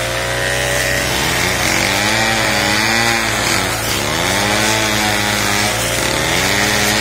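Small engine of a flexible-shaft tiller running at high speed, its pitch sagging and recovering about every two seconds as the rotating tines dig into the soil and load it.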